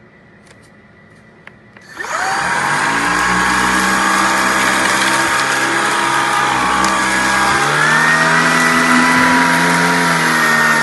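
A few light clicks, then a Shark vacuum cleaner is switched on about two seconds in: its motor spins up with a quick rising whine and runs loud and steady. Its tone changes about eight seconds in.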